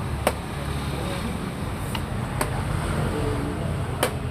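Sharp single clicks of play at a xiangqi board, as plastic pieces are set down on the wooden board and the chess clock is pressed. The clicks come three times, a second or two apart, with the last near the end, over a steady low background hum.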